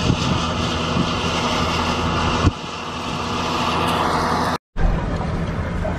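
A 200-horsepower tractor's engine running steadily under load as it pulls a Kelly diamond harrow through dry stubble, heard over a continuous rushing noise. The sound cuts out completely for a moment about three-quarters of the way through.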